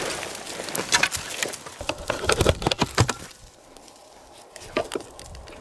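Footsteps crunching through dry brush, with twigs and dead branches crackling and snapping underfoot. The crackling stops a little past halfway, leaving quieter ground noise with one more crack near the end.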